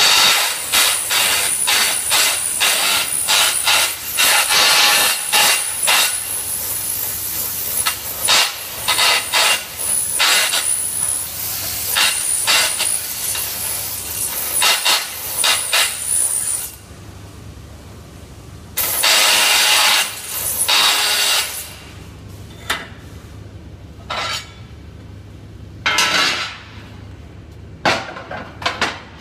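Flux-cored arc welding: the arc crackles and sputters steadily, then cuts off about two-thirds of the way through. A few short bursts of the same crackle follow, over a low steady hum.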